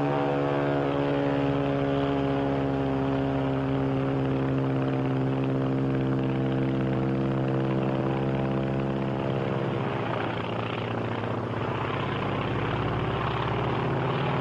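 Propeller aircraft engine in flight, a steady drone that sinks slowly in pitch. About ten seconds in it roughens, and a rising drone follows.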